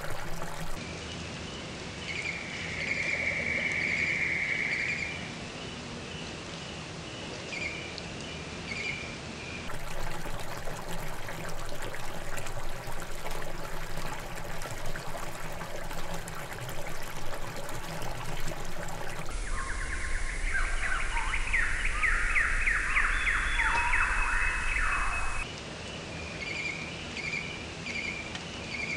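Outdoor nature ambience that changes abruptly several times. Small birds chirp repeatedly over a steady wash of trickling water. Past the middle comes a loud, rapid, trilling call lasting about six seconds, the loudest sound in the stretch.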